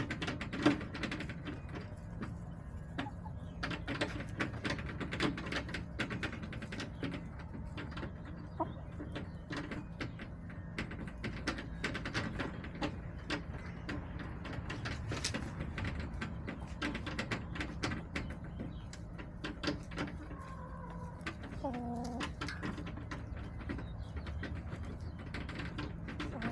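Backyard hens in their coop: frequent sharp taps and clicks, with a short call about twenty seconds in and another near the end.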